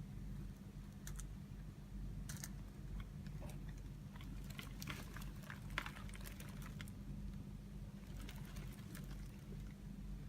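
Cats scratching and rustling at a cat bed: clusters of light scratchy clicks over a steady low hum.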